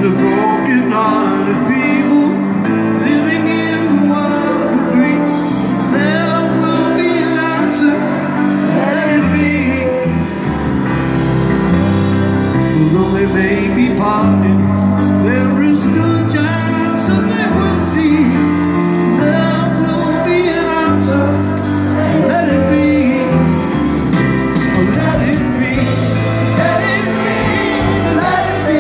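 A man singing a slow ballad live, accompanied on a Yamaha grand piano, amplified through a large venue's sound system.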